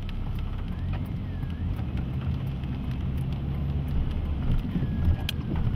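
Car driving slowly, a steady low engine and road rumble heard from inside the cabin, with scattered light clicks.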